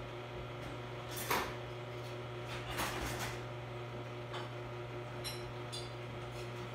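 Faint kitchen clatter of dishes and glassware being handled while a jar is fetched: a few sharp knocks and clinks, the clearest about a second and a half in and about three seconds in, over a steady low hum.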